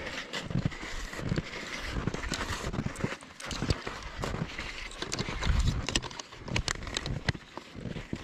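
Steps crunching and thudding through snow in an uneven walking rhythm.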